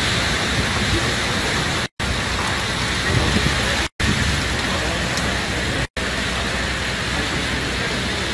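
Hurricane wind and driving rain making a steady, even rushing noise, cut by four brief silent gaps about two seconds apart.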